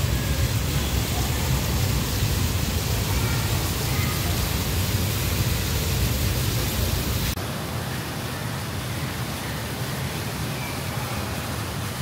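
Steady rushing and splashing of a small artificial waterfall pouring into a rock pond. About seven seconds in, the sound cuts abruptly to a lighter water hiss with less depth.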